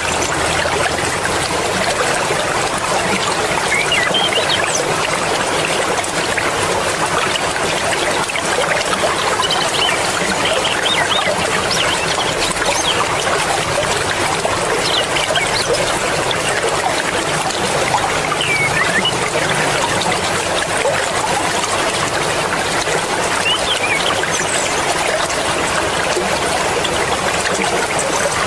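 Fast-flowing mountain river rushing and splashing steadily, with a few faint, brief high chirp-like notes now and then.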